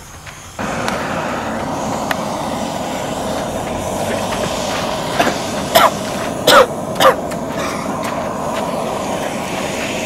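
Peanuts and cider sizzling and bubbling in a frying pan over a wood fire, a steady loud sizzle that starts suddenly about half a second in. Three short sharp sounds stand out a little past the middle.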